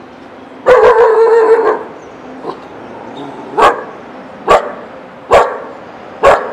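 Dog barking: one long drawn-out bark, then four short sharp barks about a second apart.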